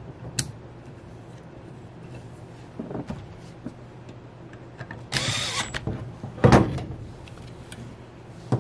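Cordless drill/driver running briefly, under a second, as it drives the screw of the spring-retaining bracket on a 727/904 transmission valve body, about five seconds in. About a second later comes a loud knock, with small handling clicks around.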